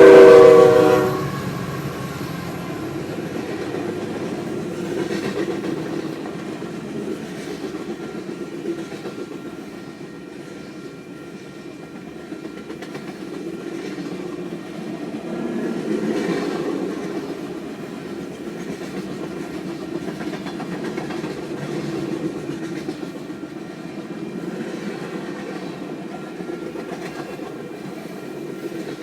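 A train whistle sounds a chord of several tones that cuts off about a second in. The train then runs on along the track with a steady rumble and wheel clatter that swells and eases a few times.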